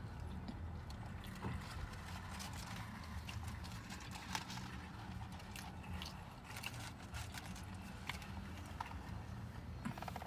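Close-up mouth sounds of eating chicken wings: irregular wet clicks and smacks of chewing and biting, over a steady low hum.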